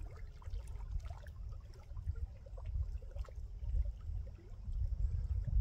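Wind rumbling unevenly on the microphone at the water's edge, with faint irregular ticks and light lapping of lake water.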